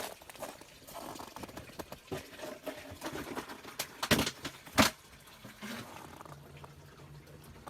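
Footsteps crunching and creaking in cold, dry snow, with two louder crunches about half a second apart just past the middle.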